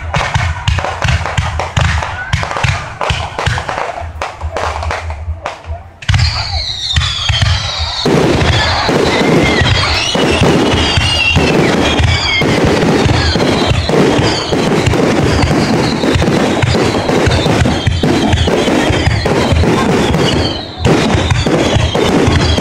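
Fireworks display: rapid bangs and crackle for about six seconds, then a dense, continuous barrage with whistling tones gliding over it.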